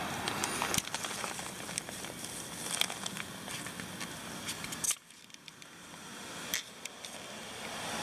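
Camera handling noise: scattered crackles and sharp clicks over a steady hiss. It drops off abruptly about five seconds in, then slowly rises again.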